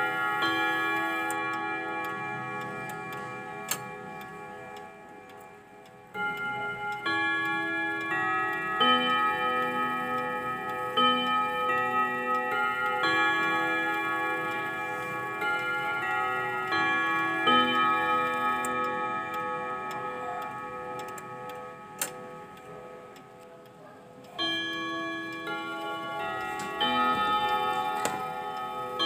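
Clock chime rods struck by their hammers, playing a chime tune in phrases: metallic notes ring on and slowly fade, with new phrases starting about six seconds in and again near the end.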